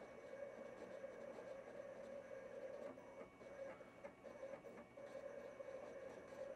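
Roland CAMM-1 vinyl cutter running faintly as it cuts a design into black heat transfer vinyl: a steady motor hum with light ticks as the blade carriage moves.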